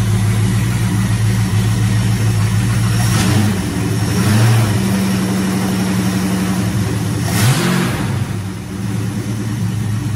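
Car engine idling, with two brief blips of the throttle: one about three seconds in and one past seven seconds.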